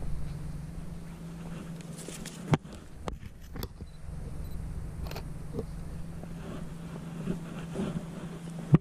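Steady low engine hum, with a few sharp clicks and knocks over it.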